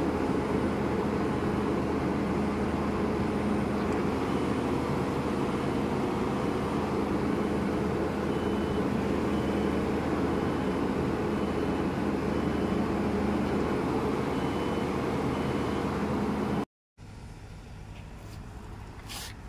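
Volvo excavator's diesel engine and hydraulics running steadily at constant speed, heard from inside the operator's cab. It cuts off abruptly about 17 seconds in, leaving quieter outdoor noise with a few clicks near the end.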